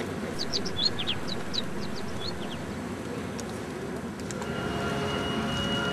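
Park ambience: small birds giving a run of quick, high chirps during the first two and a half seconds over a steady low rumble. About four seconds in, a steady held tone with overtones comes in and carries on.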